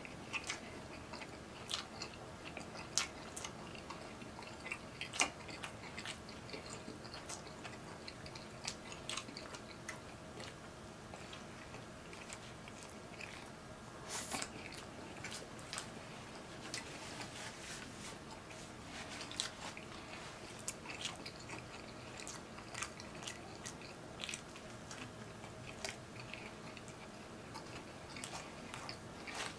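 Close-miked chewing of a soft ham-and-cheese sub sandwich, with scattered wet mouth clicks and smacks.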